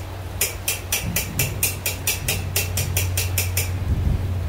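Blacksmith's hand hammer forging steel stock on an anvil: a quick, even run of blows, about four or five a second, that stops shortly before the end.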